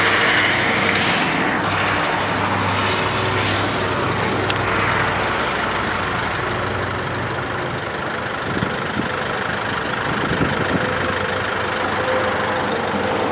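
A motor vehicle engine running steadily, a low hum under continuous outdoor noise.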